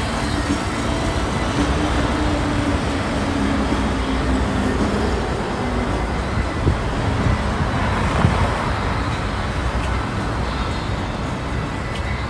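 Steady city street traffic noise: cars, taxis and a bus running along a wide road, with a low engine hum in the first few seconds.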